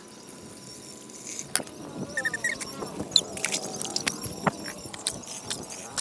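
Scattered light knocks, clicks and clatter, growing busier from about two seconds in, with a short run of high chirps just before.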